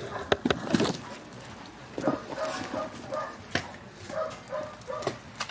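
An animal calling over and over in short, evenly spaced calls, about two a second, through the second half, with a few sharp clicks and knocks, most of them in the first second.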